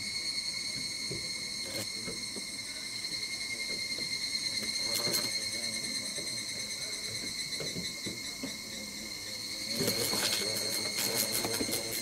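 Steady, high-pitched insect song that carries on unbroken, with soft rustles and knocks underneath; from about ten seconds in, a denser run of clicking and rattling rises over it.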